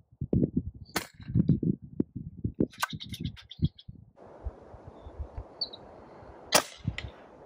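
Pre-charged pneumatic air rifle shots: a sharp crack about a second in and another about six and a half seconds in, the later one the loudest. Low gusts of wind buffet the microphone through the first half.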